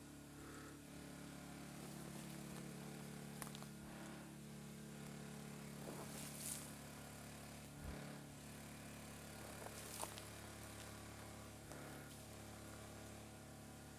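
A faint, low, steady hum made of several held tones, like a distant engine, with a few light clicks and rustles over it.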